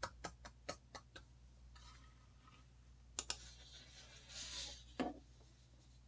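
Computer mouse clicks: a quick run of light clicks in the first second, then a double-click about three seconds in that opens a downloaded audio file, and one more click near the end.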